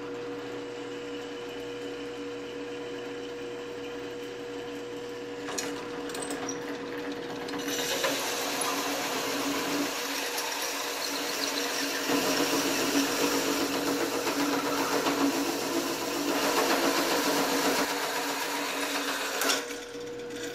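Drill press running a hole saw through 1/4-inch aluminium plate. For the first few seconds the motor runs steadily with a hum. About eight seconds in the saw bites into the aluminium with a harsh, rough cutting noise that grows louder, then near the end the saw stops cutting and the press runs on freely.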